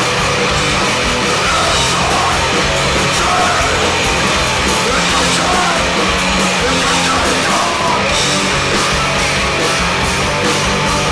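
A crust punk band playing live at full volume: distorted electric guitars, bass guitar and drum kit.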